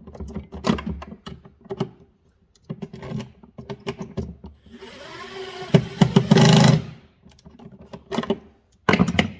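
Drill fitted with a socket driving nuts tight in short runs, the longest a little past halfway and another near the end, between sharp clicks and clatter of the socket and hardware being handled.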